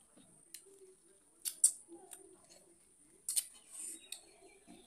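A few short, sharp clicks: one, then two close pairs, over a faint low murmur.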